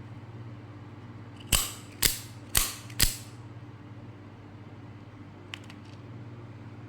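Automatic out-the-front utility knife firing its blade out and back: four sharp metallic snaps about half a second apart, then a few faint clicks later on.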